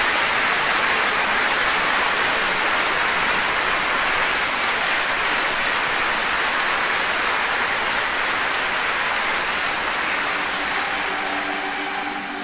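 A dense, steady rushing noise that fades near the end as soft sustained music comes in.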